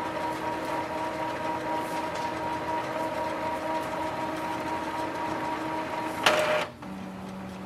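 Epson inkjet printer running its printhead cleaning cycle: a steady mechanical whir with a steady whine. About six seconds in comes a brief louder mechanical noise, then the whine cuts off, leaving a quieter low hum.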